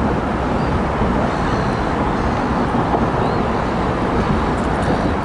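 Steady low rumble of engines and traffic noise on a busy harbour waterfront, with no single sound standing out.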